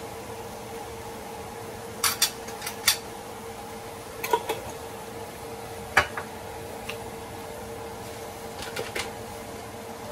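A metal spoon clinking and scraping against the inside of a glass jar of pickle relish in a few quick clusters, then a sharp knock about six seconds in as the glass jar is set down on the counter, followed by a few lighter clicks. A steady hum runs underneath.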